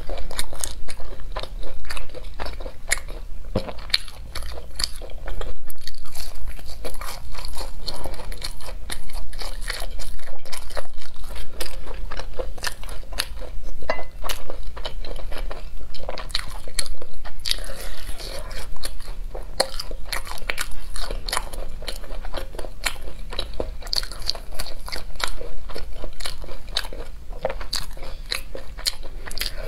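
Close-up crunching and chewing as crispy pan-fried beef and vegetable patties are bitten and eaten, with a steady run of crackly bites and mouth sounds.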